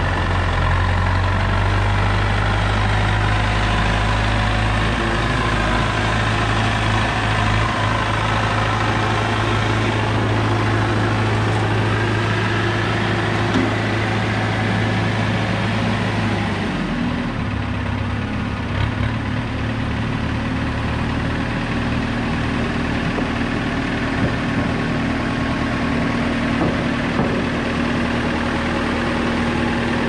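The diesel engine of a JCB 508 Loadall telehandler running steadily as the machine handles a load of lumber, with its engine note changing a little past halfway.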